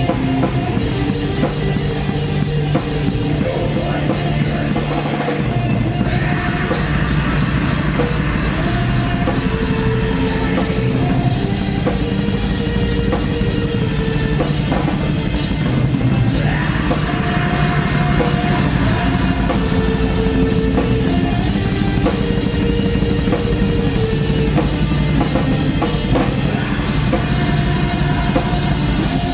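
Black metal band playing live, the drum kit hit in a fast, dense pattern under sustained guitar notes.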